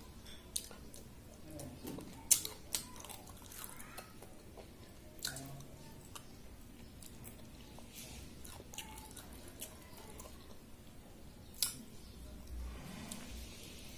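Close-miked chewing and mouth sounds of a person eating panta bhaat (soaked rice) with her fingers: scattered sharp wet smacks and clicks. The loudest come a little over two seconds in and near the end.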